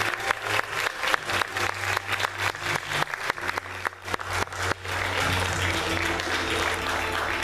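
Audience applauding at the end of a musical number, with sharp claps close by, over backing music holding low notes. The clapping thins out about five seconds in while the music carries on.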